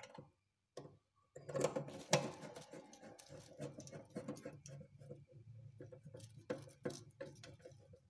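Irregular clicks, taps and rustling as a refrigerator's power cord and a screwdriver are handled against the fridge's sheet-metal frame, starting about a second and a half in.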